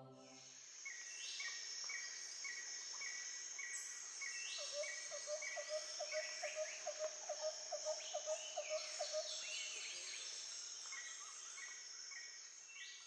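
Bush ambience of insects and birds: a steady high insect hiss, a bird repeating short high notes about three times a second, and from about four to nine seconds a lower call pulsing rapidly, about five times a second.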